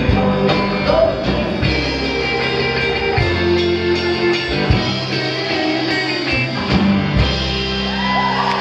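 Live country band playing a song, with guitar and upright bass, and a woman singing at the microphone.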